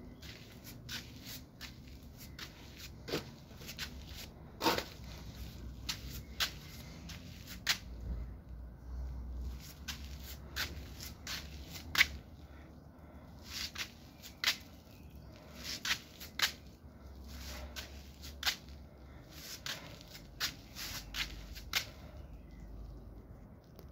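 Irregular clicks and scuffs of footsteps on brick paving, over a low rumble of the phone being handled.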